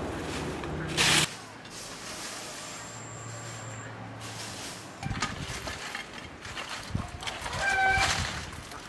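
Dry branches and brush rustling and snapping as they are handled, with a short loud rustle about a second in and irregular twig cracks later on. A chicken calls briefly near the end.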